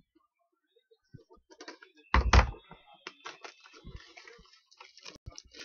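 Clear plastic cellophane wrap on a double-wrapped pack of trading cards crackling and crinkling as it is handled and peeled off, with a loud knock about two seconds in.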